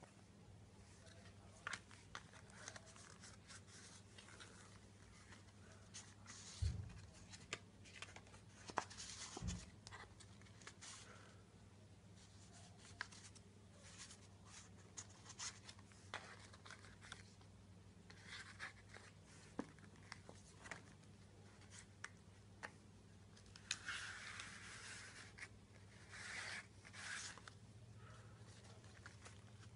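Faint rustling and light clicks of the card pages and paper flaps of a handmade scrapbook album being turned and handled. There are two soft thumps within the first third and a longer rustle near the end, over a low steady hum.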